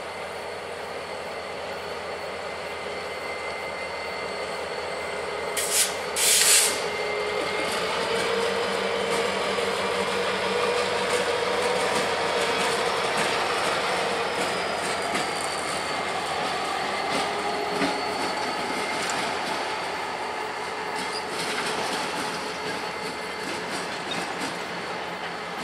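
Two EMD diesel-electric locomotives, an SD40-3 and a GP38-2, passing at low speed with their 16-cylinder EMD 645 prime movers running, then the first freight cars rolling by on the rails. A thin high wheel squeal rises and falls midway. Two short, loud bursts of noise come about six seconds in.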